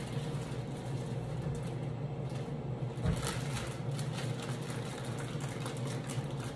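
Whole green beans being handled and dropped into a cooking pot: faint light clicks and rustles, with one clearer knock about three seconds in, over a steady low kitchen hum.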